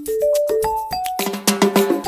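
Background music: a tune of short melody notes over a quick clicking beat that gets busier in the second half.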